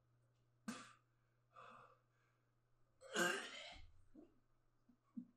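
A man's breathing while he feels sick: a short sharp gasp about a second in, a faint breath, then a louder, longer exhale or sigh about three seconds in.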